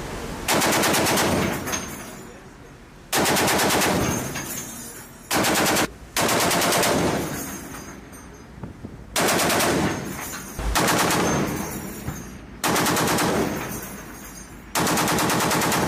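M2HB .50-calibre heavy machine gun firing about eight short bursts of roughly a second each, every burst a rapid, even string of shots that fades away before the next.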